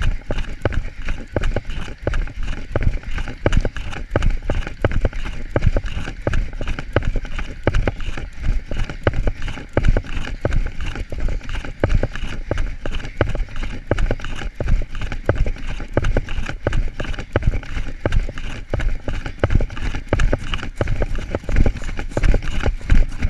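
Running footsteps pounding in a fast, even rhythm, with the handheld camera knocking and jostling at each stride.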